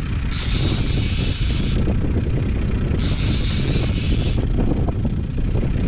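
Wind buffeting the microphone in an open boat on a lake, a dense irregular rumble, with a hissing rush that comes and goes about every three seconds.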